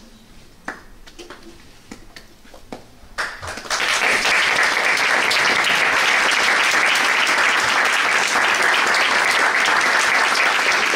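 Audience applause: a few scattered claps at first, then about four seconds in the whole audience joins in and claps steadily.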